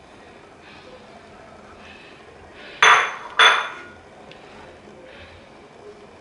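Two sharp metallic clinks on a frying pan, about half a second apart, each ringing briefly, over faint scraping of a spatula stirring flour in the pan.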